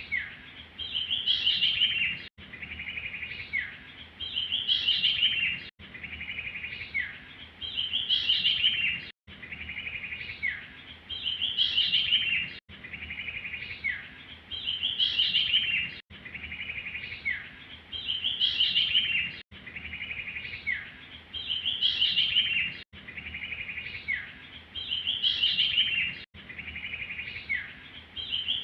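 Looped recording of a bird lure call used for trapping songbirds. The same short phrase repeats about every 3.4 s: a high note, a quick downward slur, then a fast trill rising in pitch.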